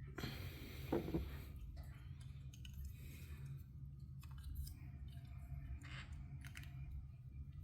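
Plastic Lego pieces being handled and pressed together. There is a rustle for about the first second and a half, then scattered small clicks, over a low steady hum.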